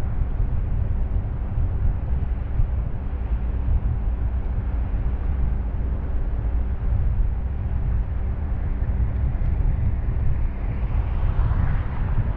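Car driving on a wet road, heard from a roof-mounted camera: a steady low rumble of wind buffeting the microphone and road noise, with a faint engine hum. A hiss, like tyres on wet pavement, swells near the end.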